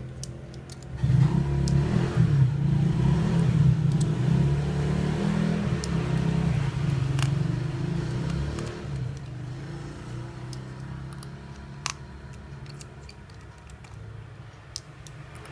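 A motor vehicle engine running close by, coming in loud about a second in and fading away over the second half. Small sharp clicks are scattered throughout.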